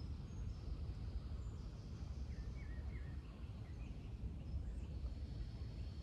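Park ambience: a steady low rumble with faint bird chirps and calls over it, a few short chirps about two to three seconds in.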